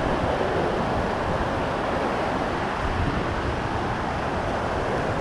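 Whitewater river rapids rushing, a steady wash of moving water without a break.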